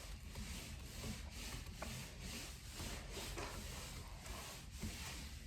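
Soft, repeated rubbing strokes of a surface being wiped, as bits of slime and glitter are wiped up.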